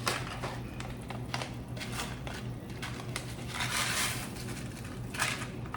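A packet of dry chicken noodle soup mix crinkling and crackling as it is handled and its contents are tipped into a pot, with a string of small crackles and a longer rustle about four seconds in.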